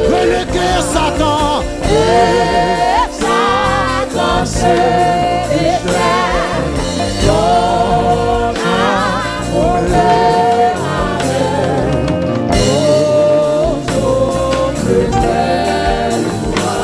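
Gospel worship music: voices singing long, wavering held notes over instrumental backing with a steady beat.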